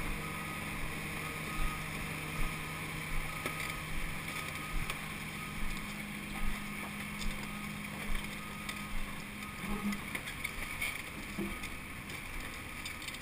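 Footsteps walking through wet mud and rock, about one step every 0.8 seconds, over the steady low hum of a nearby excavator's engine that falls away about nine seconds in.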